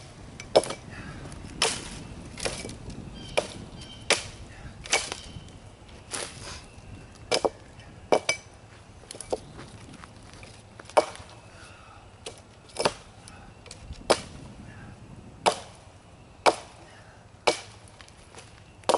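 An axe chopping at the limbs of a felled tree, with sharp wooden strikes about once a second, now and then two in quick succession.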